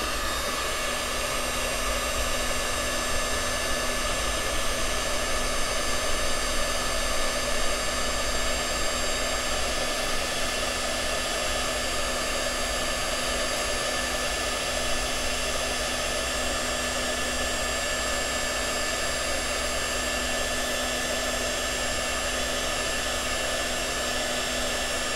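NETTA heat gun running steadily, blowing hot air with an even fan-motor whine as it shrinks a heat-shrink crimp butt connector onto a cable.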